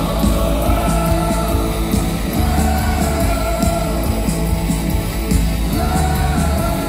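A live rock band playing loud worship music, with drums, electric guitar and bass, and voices singing long, wavering notes over it.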